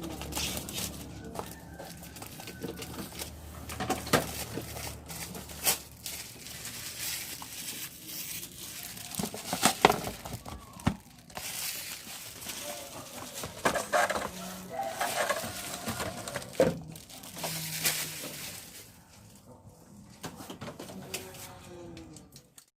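Packaging being handled and pried open: crinkling plastic and rustling cardboard with scattered sharp clicks and taps, the loudest about ten seconds in.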